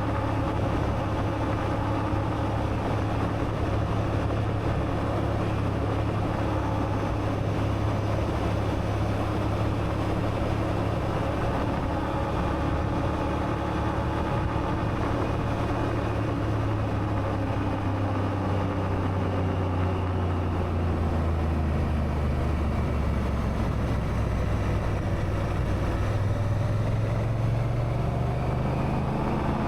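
Honda Africa Twin's parallel-twin engine running as the motorcycle rides along. A bit over halfway through the engine note falls as the bike slows, then rises again near the end as it picks up speed.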